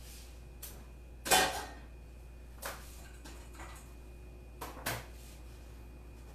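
Kitchenware handled at the stove: a few separate knocks and clinks of pans and utensils, the loudest about a second in with a short ring.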